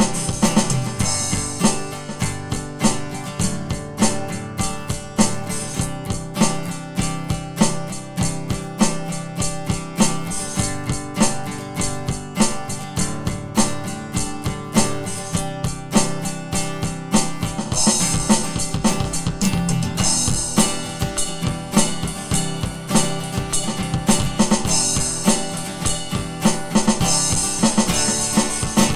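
Aroma TDX-21 electronic drum kit played in a steady groove through its sound module, on a user-programmed kit: kick, snare and tom sounds, over a backing track with guitar. Brighter cymbal playing comes in about two-thirds through and again near the end.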